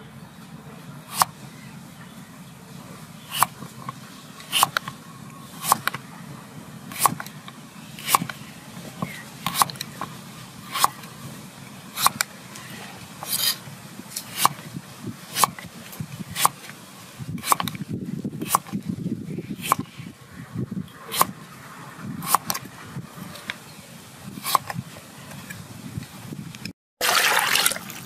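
Kitchen knife slicing peeled green papaya on a wooden chopping board, each cut ending in a sharp knock on the board about once a second. Near the end, water splashes over the cut papaya strips in a metal bowl.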